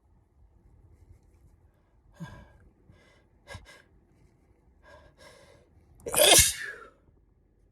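An induced human sneeze: several short breaths over a few seconds, then one loud sneeze about six seconds in.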